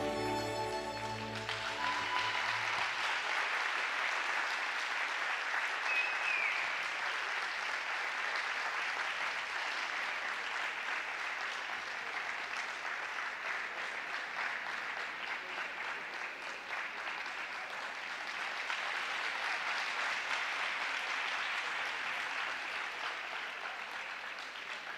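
The last notes of the skating music fade out a second or two in, then the audience applauds steadily, tapering off slightly near the end.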